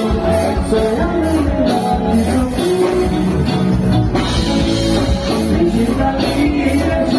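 Lambadão band music with a singing voice over a steady, driving beat.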